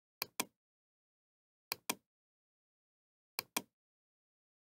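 Computer mouse button clicking: three quick pairs of sharp clicks about a second and a half apart, with dead silence between them.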